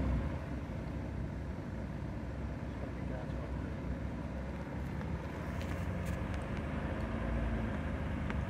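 Runabout speedboat's engine idling steadily with a low rumble.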